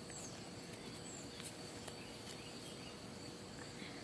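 Faint outdoor ambience: a steady high insect drone with a few short, faint bird chirps over a low hiss.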